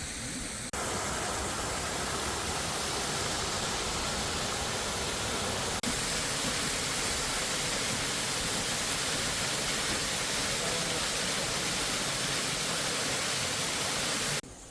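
Waterfall in a mountain gorge: a steady rush of falling white water, with abrupt level jumps about a second in and halfway through where the footage is cut.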